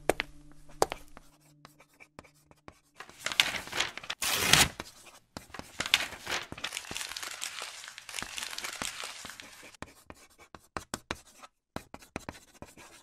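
Pens scratching on paper and pages being handled as students write at their desks, with a louder burst of paper rustling about four seconds in.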